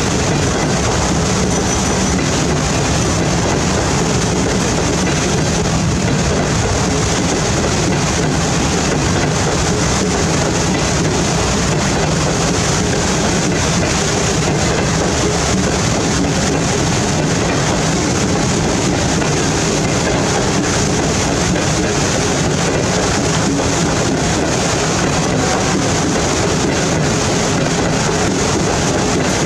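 Passenger train coaches rolling through floodwater covering the track, the wheels and bogies churning up spray in a steady, continuous rushing wash of water and running gear.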